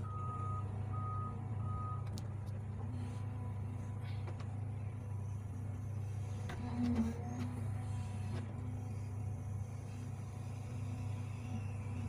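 Hydraulic excavator's diesel engine running steadily, heard from inside the cab. Three short, evenly spaced electronic beeps sound in the first two seconds.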